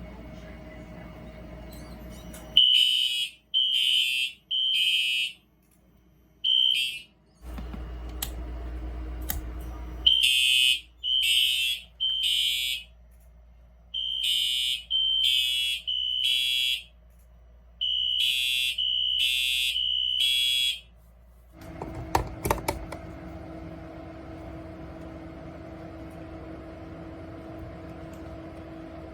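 Fire alarm horns sounding the temporal-3 evacuation signal: groups of three short, high-pitched blasts with a pause between groups, repeated several times. After the last group come a few clicks, then a steady hum.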